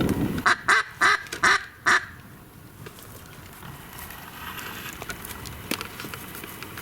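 Five loud mallard-hen-style quacks in quick succession, about a third of a second apart, then only faint background noise with a few light clicks.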